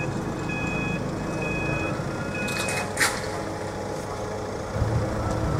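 Level crossing warning alarm sounding evenly spaced beeps, about one a second, which stop just under three seconds in and are followed by a single sharp knock. Near the end a low rumble begins as the DART electric train draws near.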